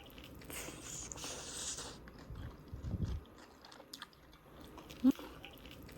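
Crunching bites into crispy battered fried chicken, then chewing, with one sharp short knock about five seconds in.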